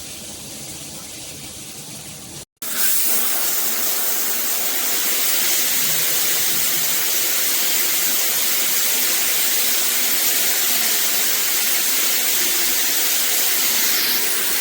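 Water running from a handheld shower head, with a brief dropout about two and a half seconds in, after which the spray is louder, a steady hiss.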